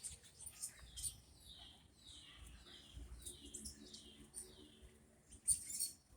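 Small songbirds calling: a run of about seven down-slurred notes, roughly two a second, among scattered short high chirps, with a sharp click near the end.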